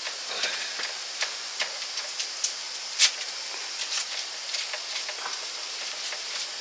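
Food frying in a pan: a steady sizzling hiss with irregular crackles and pops, one louder pop about three seconds in.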